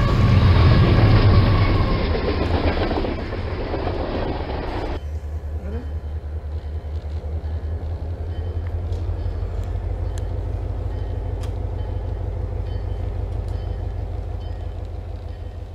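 N scale model trains running on layout track. A loud rushing whir comes from a freight train rolling past close by. It cuts off suddenly about five seconds in, leaving a steady, low, quickly pulsing hum while a diesel switcher creeps along a siding.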